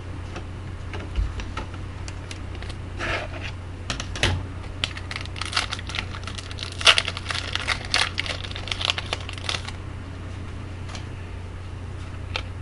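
A pack of hockey trading cards being torn open and the cards handled: a run of crinkling, tearing and light clicking strokes, busiest in the middle, over a steady low hum.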